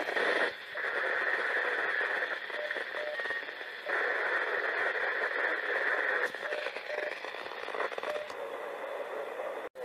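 CB radio receiver on the 11-metre band hissing with open-squelch static through its speaker, with faint, unreadable signals in the noise. The static breaks off briefly about half a second in, changes near the middle as the channel is stepped from 10 to 11, and cuts out for an instant near the end.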